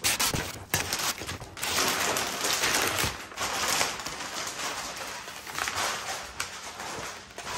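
Christmas wrapping paper being torn off a large cardboard box, in repeated rips with crackling and crinkling.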